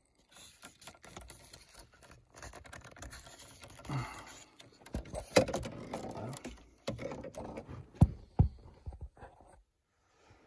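Plastic dash trim and wiring connectors being handled: scattered small clicks and rubbing as plug connectors are pulled off a car's cigarette lighter socket, with a sharper click about five seconds in and two more around eight seconds in.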